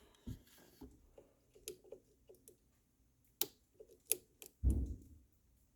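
Small clicks and taps of Ruger 10/22 rifle parts being handled and fitted during reassembly, with two sharper clicks about three and a half and four seconds in, then a soft low thump.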